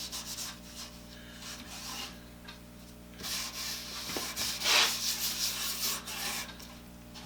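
A rag wet with boiled linseed oil being rubbed over a wooden vise chop: a hissy swishing of cloth on wood. The strokes are faint at first and grow louder from about three seconds in.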